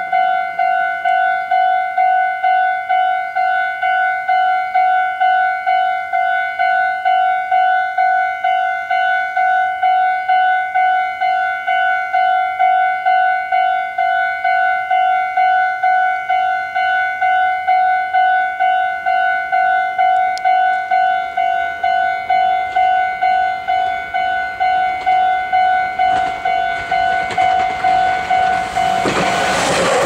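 Japanese level-crossing warning bell ringing in even, repeating strikes a little under two a second. Near the end, a Meitetsu 3700-series electric train arrives and the noise of its passing rises over the bell.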